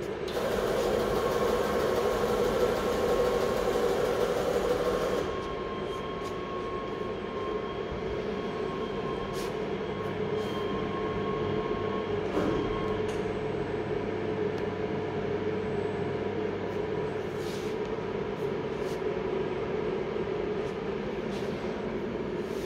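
Steady machine hum with a faint held whine, louder for the first five seconds or so, with a few light clicks scattered through it.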